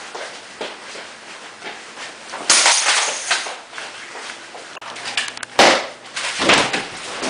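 Staged gunfire from toy guns: a long noisy blast about two and a half seconds in, then two sharp bangs, one about five and a half seconds in and the loudest about a second later.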